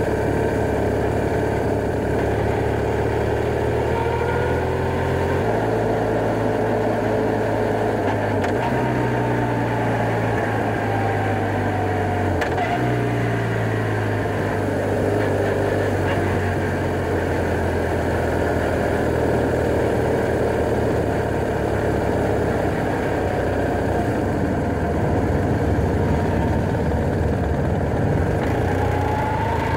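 BMW R1100RT's boxer twin running at low convoy speed. Its steady note shifts in pitch a few times in the first half as the throttle changes.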